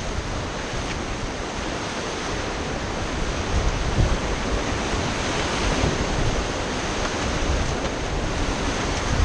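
Whitewater rushing around a river raft in a rapid, with wind buffeting the microphone; the rush grows slowly louder.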